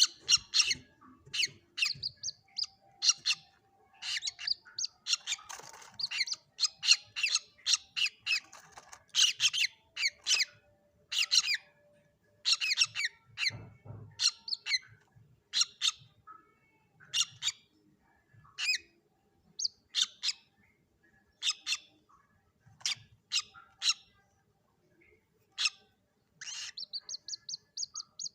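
Young common moorhens calling: short, sharp, high peeps repeated a few times a second in irregular clusters, with a quick run of notes near the end.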